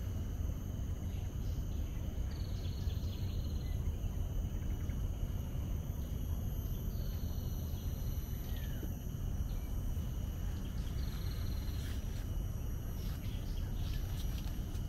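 Outdoor ambience: a steady low rumble under a steady high drone of insects, with a bird giving a short high trill three times, a few seconds apart.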